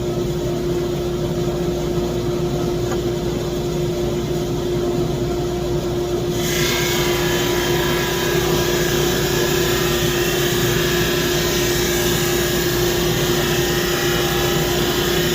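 SuperMax 25-50 drum sander running with a steady hum. About six seconds in, a high hiss comes in and holds as the sanding drum starts working a board of heart pine.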